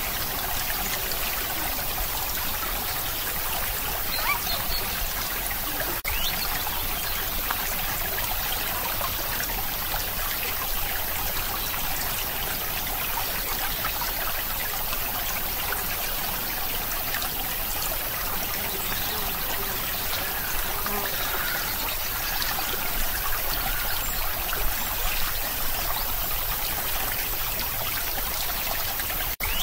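Steady trickling, rushing water sound like a flowing stream, with a momentary dropout near the end.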